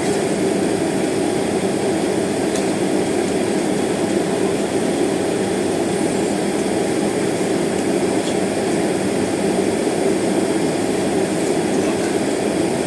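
Steady airliner cabin noise during taxi: the jet engines running at low taxi thrust under the even hiss of the cabin air, with no change in pitch or level.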